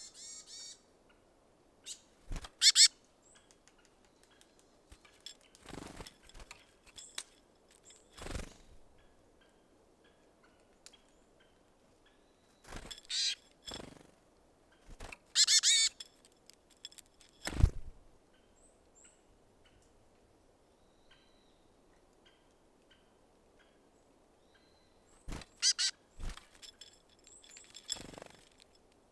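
Small garden birds at a seed feeder: short, high, bright calls in a few clusters, with scattered sharp knocks and thumps and lighter tapping as they land and peck at sunflower seeds.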